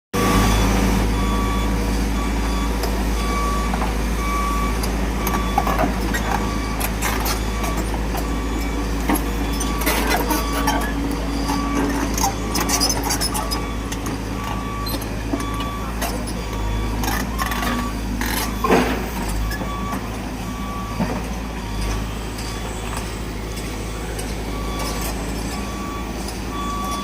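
Volvo EC210 excavator's diesel engine running steadily while its warning alarm beeps about once a second. Scattered clanks and scraping knocks sound over it, the loudest about two-thirds of the way through.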